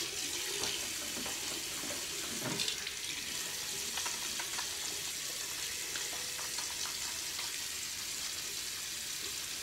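Water running steadily from a tap into a sink while hands are rinsed under it, with a few faint knocks.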